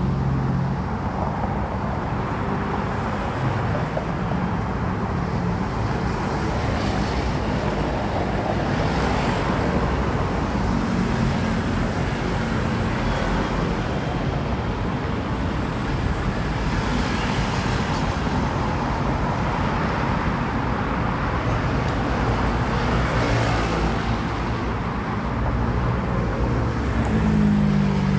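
Steady road traffic noise: car engines and tyres running, with a low engine hum that grows stronger near the end.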